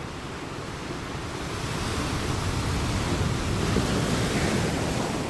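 A rushing noise with no tone in it, like wind or surf, swelling to its loudest about four seconds in and easing off near the end.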